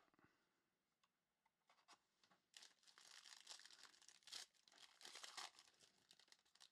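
Faint crinkling and tearing of a foil trading-card pack wrapper being opened by hand, beginning about two and a half seconds in.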